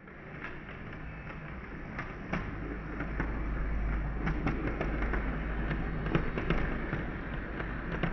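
Heljan OO gauge class 128 parcels unit model running along the track: a steady motor and wheel rumble with irregular sharp clicks from the wheels on the rails, growing louder as it passes close by.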